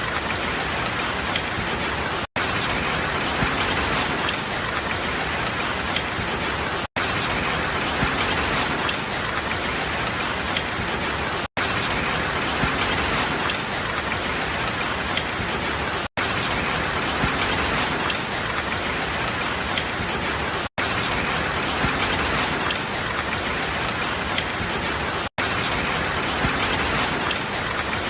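Steady heavy rain falling on a surface, a dense hiss flecked with individual drops. It is cut by a brief dropout to silence about every four and a half seconds, the seams of a short looped recording.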